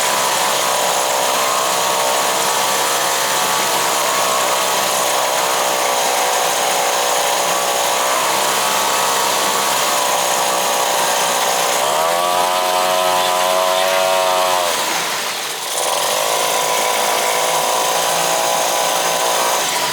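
Small two-stroke outboard motor running steadily in a test barrel. About twelve seconds in it is revved higher for a few seconds, then drops back with a brief dip before settling again. It runs smoothly now, which the owner puts down to dirt that was stuck in the carburetor having been cleared.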